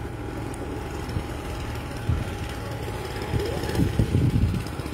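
Small motorbike engine running as it rides up and pulls in, over a steady low rumble; it is loudest and most uneven about three and a half to four and a half seconds in, as the bike arrives.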